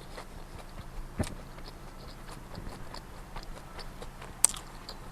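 Close-up chewing of a big mouthful of cheeseburger: soft wet mouth clicks and smacks, with a sharper click about a second in and another near the end, over a low steady hum.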